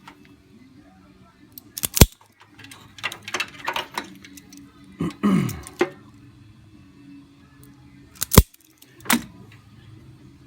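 Hand work on headlight relay wiring: scattered sharp clicks and clattering of small parts, with the loudest clicks about two seconds in and again near the end, over a faint steady low hum.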